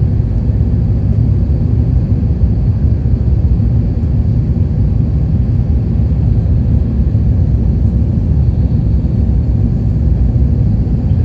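Steady low rumble of an Airbus A350-900's Rolls-Royce Trent XWB jet engines and rushing air, heard from inside the passenger cabin during takeoff.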